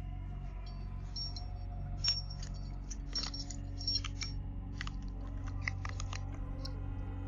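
A bunch of keys jangling, with sharp metallic clicks and rattles as keys are tried in a door lock, over a steady low hum.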